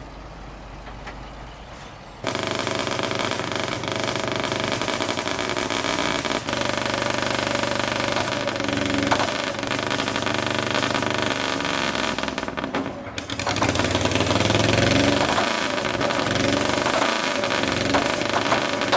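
Heavy diesel engine of a bulldozer running loud and steady, cutting in suddenly about two seconds in after a quieter low rumble, with a few sharp metallic clanks.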